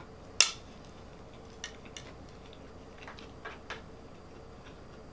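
Eating utensil clinking against a plate of fried rice: one sharp clink about half a second in, then a few lighter taps.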